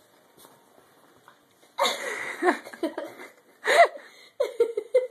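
Chihuahua puppies play-fighting: short growls and yips in a few bursts starting about two seconds in, the loudest a little after the middle.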